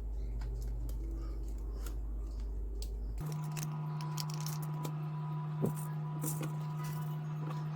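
Steady electrical hum that switches abruptly to a higher-pitched hum about three seconds in, with scattered light clicks and taps of small handling.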